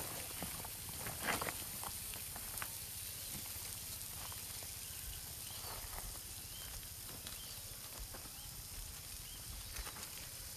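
Komodo dragon walking over dry dirt and stones: scattered short scuffs and scrapes of its clawed feet and body, the strongest about a second in, over a steady high hiss of outdoor ambience.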